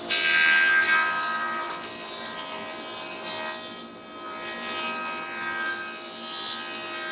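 A woodworking power tool already running cuts into wood in two passes of about four seconds each, each with a whining, rasping cutting noise over the machine's steady hum.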